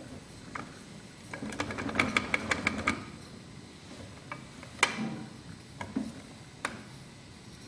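Lead scraps crackling as they melt in a metal cup under a gas torch flame: a quick run of sharp clicks lasting about a second and a half, then three single clicks, over a faint steady hiss.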